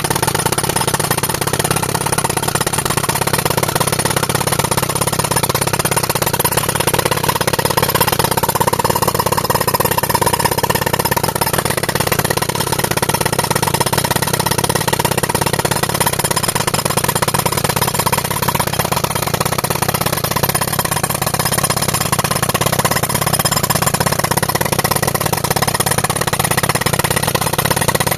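Tractor engine running an air compressor, with a pneumatic rock breaker hammering steadily against a boulder, without a pause.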